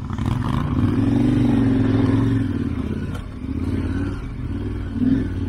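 KTM 1290 Super Adventure R's V-twin engine running at low revs in a low gear over rough rocky ground, picking up about a second in and easing off again near the three-second mark.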